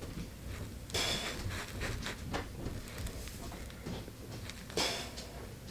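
A person breathing out hard twice, about four seconds apart, with the effort of single-leg chair lunge reps.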